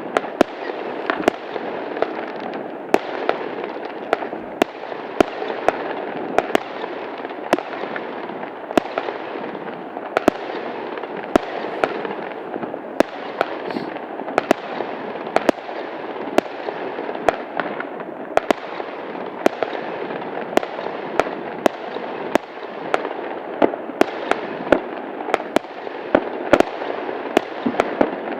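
Fireworks going off: a continuous crackling with sharp bangs about every half second to a second.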